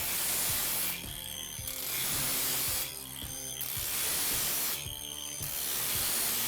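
Angle grinder at low speed grinding the teeth of a steel bandsaw blade: a gritty grinding hiss about a second long, repeated roughly every two seconds as the disc passes over tooth after tooth, four passes in all.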